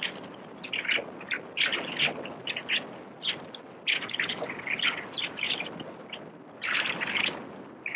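Small birds chirping busily: many short, quick calls one after another, with a dense flurry about seven seconds in, over a steady background hum of the city street.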